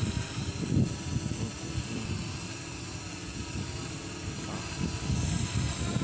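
Parrot Anafi quadcopter hovering low, its propellers giving a steady high whine, with gusts of wind buffeting the microphone in uneven low rumbles.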